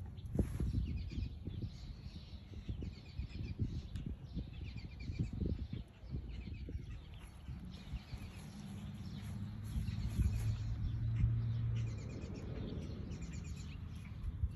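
Birds chirping in short repeated bouts over a low rumble and scattered knocks from wind and handling on the microphone.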